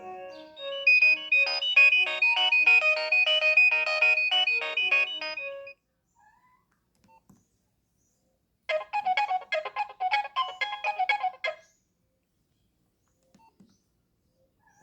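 Nokia 6560 mobile phone ringtones played back: one electronic melody of quick notes ends about six seconds in, and after a pause of about three seconds a second, different tune plays for about three seconds and stops.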